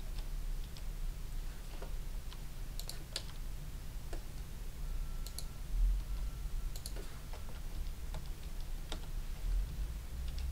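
Scattered clicks of a computer mouse and keyboard, one or two at a time every second or so, over a steady low hum.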